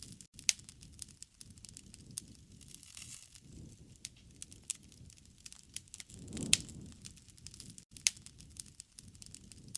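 Wood fire crackling: a constant faint hiss with many small snaps and a few sharp, louder pops, the loudest about half a second in and about six and a half seconds in, together with a soft low rush.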